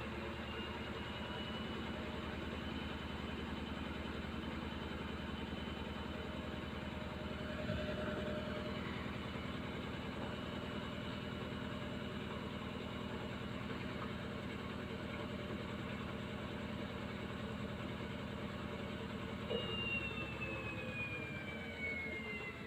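Haier washing machine in its spin cycle: the drum motor runs with a steady hum and a high whine. About three seconds before the end, the whine starts to fall steadily in pitch as the spin speed changes.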